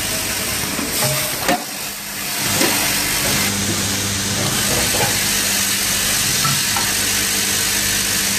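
Packing-line machinery running. After an abrupt change about two seconds in, a vibratory bowl feeder sorting plastic one-way degassing valves gives a steady hum under a constant rattle of the valves, with a few light clicks.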